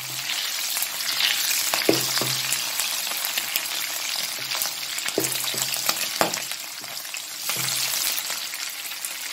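Pork belly pieces sizzling in hot oil in a non-stick wok, stirred and turned with a spatula that knocks and scrapes against the pan a few times.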